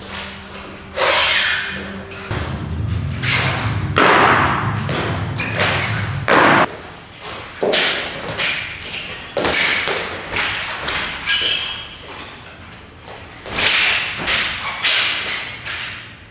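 Irregular thuds and stamps of feet and body on a wooden floor, with quick swishes of a weapon and clothing, as a kung fu form is performed, including a roll on the floor.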